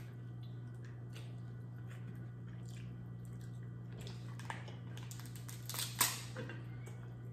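Close-up eating sounds of boiled seafood: wet chewing and smacking, with small cracks and clicks as shells are peeled, and a louder bite about six seconds in. A steady low hum runs underneath.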